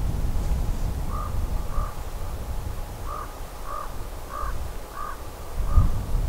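A corvid calling a run of short, harsh caws: two, then after a pause five more, about half a second apart. A low wind rumble on the microphone runs underneath.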